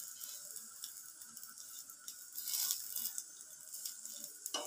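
Faint, steady sizzling of a batter-coated pitha shallow-frying in a little oil on a non-stick pan.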